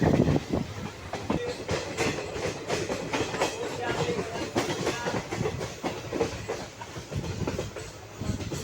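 Moving passenger train: its wheels clatter over the rail joints in a busy, irregular run of clicks and knocks over a steady rumble.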